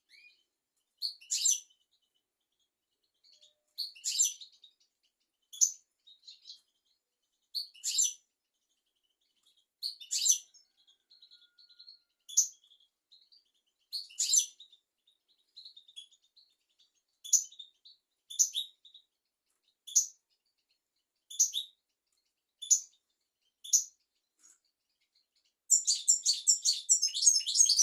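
European goldfinch singing: short, high chirping notes every second or two, breaking into a fast twittering run near the end.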